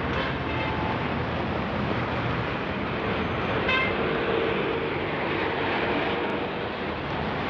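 City bus engine idling at a stop amid steady street traffic noise, with a brief high toot about three and a half seconds in.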